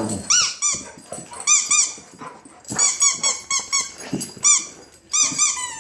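A dog chewing a squeaky toy, setting off its squeaker again and again: short squeaks that rise and fall in pitch, some single and some in quick runs of three or four.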